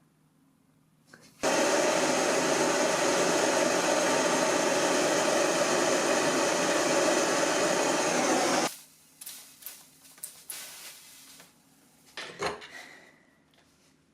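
Gas torch flame hissing steadily while brazing a brass ring onto a brass buckle plate, lit about a second and a half in and shut off abruptly some seven seconds later. Afterwards come a few light clicks of handling and one sharp metallic clink that rings briefly.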